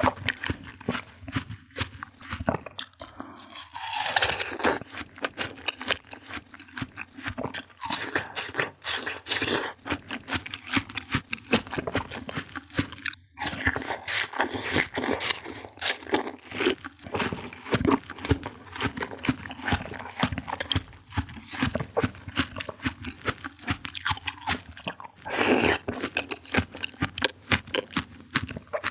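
Eating fruit: repeated crisp bites and chewing, with a few louder bites about four seconds in and near the end.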